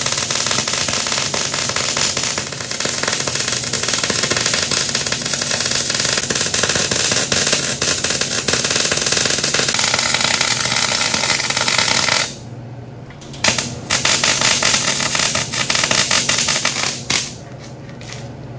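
Wire-feed welding arc crackling and sizzling steadily as beads are laid on a steel frame, stopping briefly about twelve seconds in and again near the end between welds.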